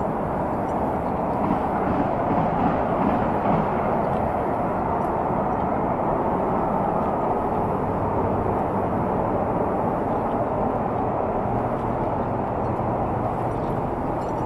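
A steady rushing noise that holds even throughout, with no distinct knocks or calls standing out.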